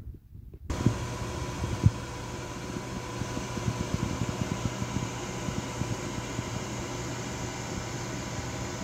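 Steady mechanical whir with a faint hum, like a fan or appliance motor running, starting abruptly under a second in; two short knocks sound in the first two seconds.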